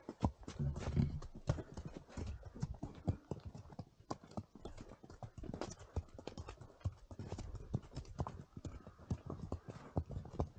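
Horses walking on a trail of packed snow and mud, their hooves clip-clopping in an irregular run of steps.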